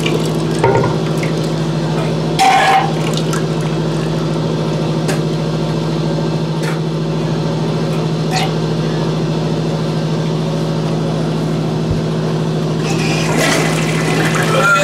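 A drunk man retching and vomiting into a toilet bowl, with liquid splashing into the water. There is a short retch about two and a half seconds in and a longer, louder bout of heaving near the end, over a steady hum.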